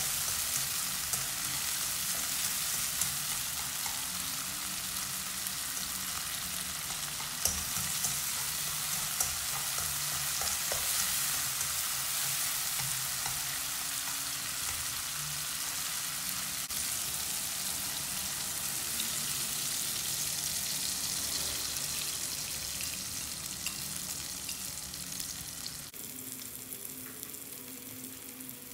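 Onion slices and diced tomato sizzling in oil in a nonstick wok, stirred with chopsticks that click against the pan a few times. Near the end the sizzle turns quieter and softer once the egg batter is cooking over the vegetables.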